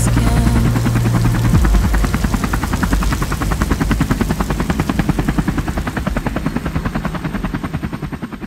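Helicopter rotor blades chopping in a fast, steady beat, fading out near the end.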